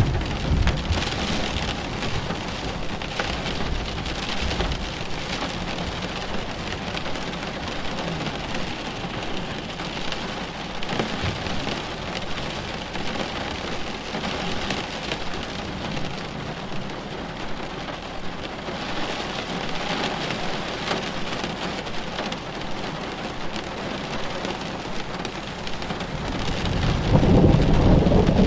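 Steady rain pattering down during a thunderstorm. A low rumble of thunder swells near the end.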